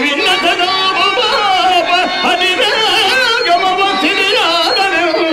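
Telugu stage-drama padyam singing: a single voice sliding and quivering through ornamented held notes, with harmonium accompaniment.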